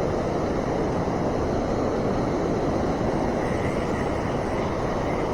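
River water rushing steadily, an even noise with no breaks or gusts.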